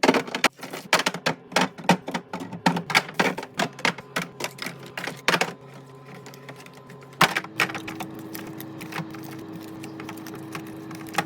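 Quick, irregular clicks and clacks of food items and plastic containers being handled and set down while restocking a fridge, thick at first and sparser after about seven seconds, when a steady low hum comes in beneath them.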